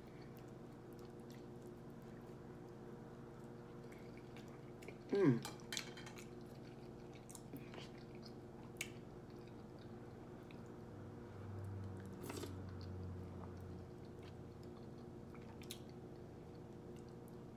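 Quiet eating sounds: a plastic fork and spoon scraping and clicking in a baked potato and a cup of chili, with soft chewing, over a steady low hum. About five seconds in comes a short voice sound that falls in pitch.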